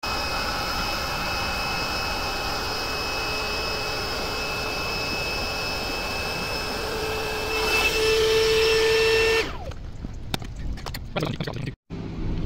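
Electric air pump running steadily while inflating an air mattress; it grows louder with a deeper hum about eight seconds in as the mattress fills, then stops suddenly. Clicks and handling noises follow.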